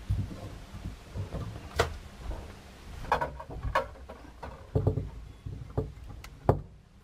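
Scattered clicks and knocks of a hand gripping and working the chrome angle stop valves on the sink's supply lines, mixed with low handling thumps. The sharpest clicks come about two seconds in and near the end.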